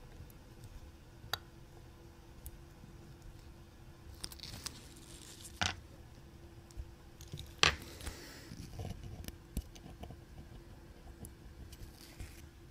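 Small metal tools and tweezers handling pocket-watch movement parts: scattered faint clicks and light scrapes, with two sharper clicks about two seconds apart near the middle, over a faint steady hum.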